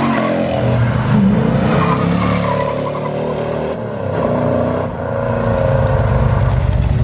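Car engine revving, its pitch rising and falling several times, then settling into a low, evenly pulsing rumble for the last couple of seconds.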